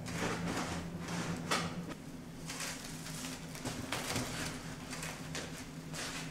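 Machinery running with a steady low hum, with irregular knocks and rustling over it.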